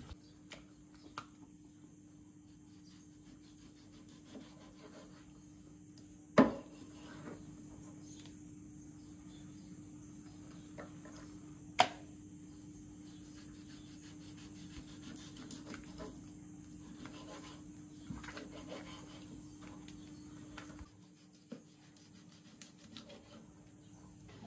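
Knife and meat being handled on a plastic cutting board by a steel sink: a few short sharp knocks and clicks, two of them loud, about six and twelve seconds in. A steady high-pitched tone and a faint low hum run underneath.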